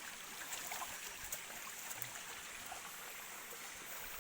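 Steady rushing noise of running water, with a few faint scattered clicks.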